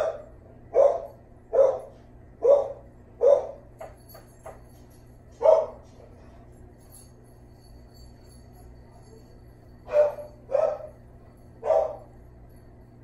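A dog barking in short bursts: five barks under a second apart, a single bark a few seconds later, then three more near the end.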